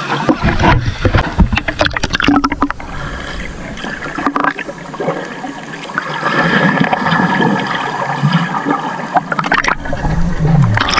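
Muffled underwater gurgling and sloshing of water heard through a submerged action camera. There are bursts of clicking bubbles in the first couple of seconds and again shortly before the end.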